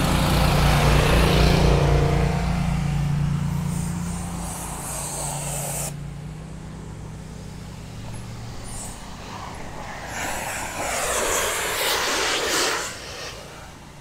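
A landscaper's motor-driven power tool running close by, fading as the bike rides past, then cut off abruptly about six seconds in. Later a car passes on the road, rising and falling over a few seconds.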